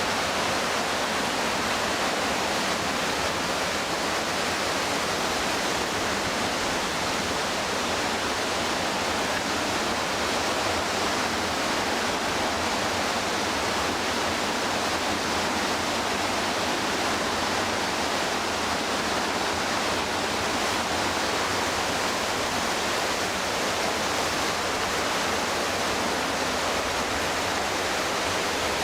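Steady roar of the McKenzie River's whitewater and falls, an unbroken rush of water with no change in level.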